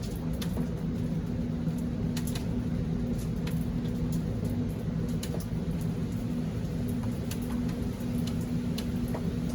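Light rain with scattered drops ticking sharply and irregularly on nearby surfaces, over a steady low machine hum.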